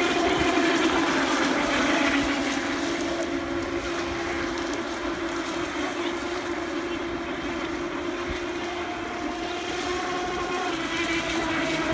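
Pro Boat Recoil brushless electric RC race boats running flat out across the water. Their motors give a steady whine over the hiss of hull spray, with a second, higher tone joining for a couple of seconds near the end.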